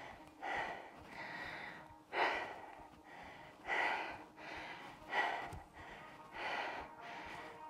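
A woman breathing hard from the exertion of weighted squats, with heavy, audible breaths about every second and a half.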